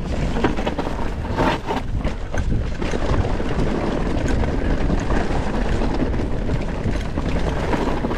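Mountain bike riding fast down a rocky, loose-gravel trail: tyres crunching over stones and the bike rattling with frequent sharp knocks, over a steady rush of wind on the microphone.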